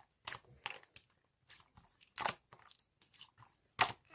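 Close-up crunching and chewing of crisp food, a run of irregular crunches with the sharpest ones about two seconds in and near the end.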